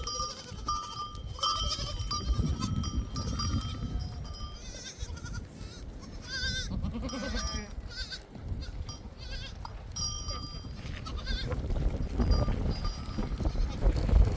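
Bells on a flock of sheep ringing on and off, with bleating in the middle, over a steady low rumble of strong wind.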